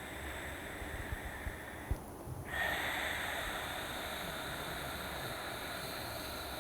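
Ujjayi pranayama breathing: a slow breath drawn in through the nose, a brief pause about two seconds in, then a longer, louder, steady rushing breath pushed out through the narrowed throat with the mouth closed. This is the 'ha' sound made inside the throat.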